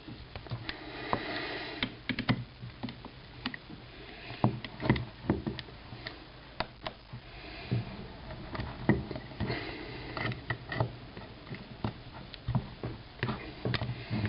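Irregular sharp clicks, taps and knocks of hands and tools working at the pins that hold the trigger carrier of a Mossberg .22 tactical rifle; the pins are stubborn and do not come out easily.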